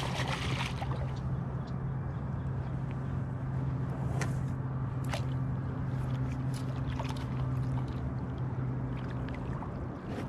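A steady low motor hum that stops near the end, with a few scattered sharp clicks and light water trickling.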